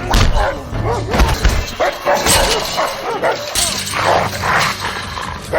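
A dog barking and yipping repeatedly in short calls over music.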